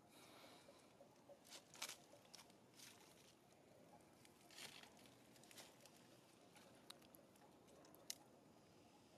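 Near silence with several faint, short crackles and clicks scattered through it, from dry leaf litter shifting under the monkeys.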